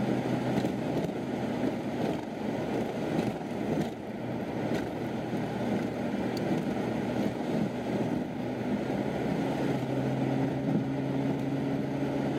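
Vehicle driving at highway speed, heard from inside the cabin: a steady low engine drone over road and tyre noise on pavement.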